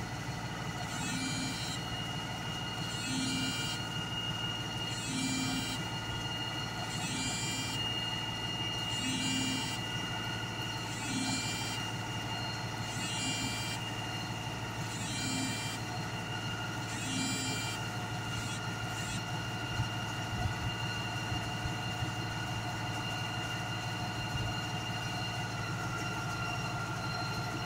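US Jetting 4018 sewer jetter running with a steady drone, its high-pressure pump driving water through a penetrator nozzle. A regular pulsing sound comes about every two seconds and stops about eighteen seconds in.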